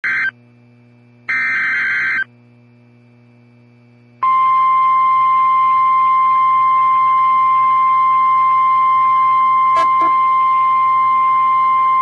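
NOAA Weather Radio emergency alert: the end of the SAME digital header, heard as a short buzzy data burst and then a second one about a second long. About four seconds in, the steady 1050 Hz weather radio warning alarm tone starts and holds, with two faint clicks partway through.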